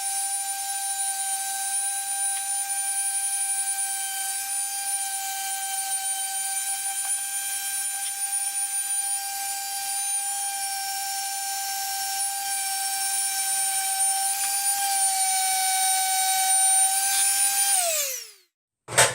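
Electric power tool motor running at a steady speed with a high whine, then switched off near the end and quickly winding down in pitch, followed by a short click.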